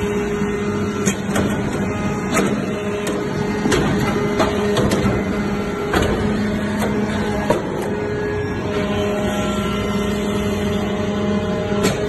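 Hydraulic briquetting press for metal chips running: its hydraulic power unit gives a steady hum, with irregular sharp clicks and knocks scattered through it.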